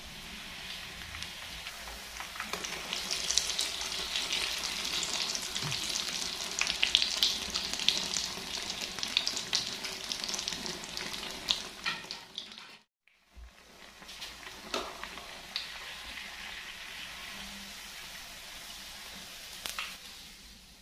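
Instant noodles frying in hot cooking oil in a pan: a steady crackling sizzle with scattered clicks and scrapes of a utensil stirring. It drops out for a moment about 13 seconds in, then carries on quieter.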